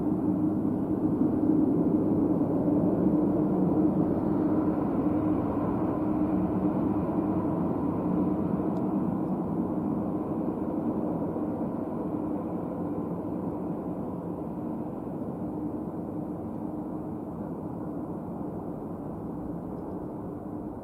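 Twin turbofan engines of an RCAF CC-150 Polaris (Airbus A310) running at taxi power: a steady jet drone with a low hum that slowly fades as the aircraft taxis away.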